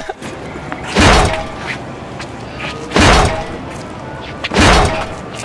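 Pillows swung hard and striking in a pillow fight: three loud thuds, about two seconds apart.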